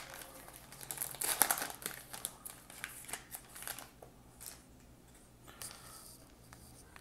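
Crinkling of a baseball card pack wrapper being torn open and the cards pulled out, loudest about a second in, then thinning to lighter, scattered rustles.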